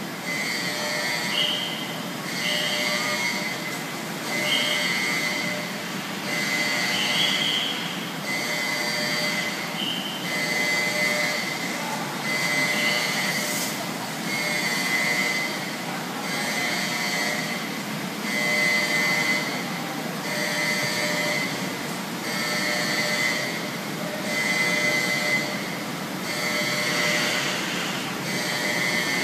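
Repeating warning signal on a ferry's car deck, one long beep about every second and a half, over the steady rumble of the ship's machinery and ventilation. A few short high metallic squeals come in the first half.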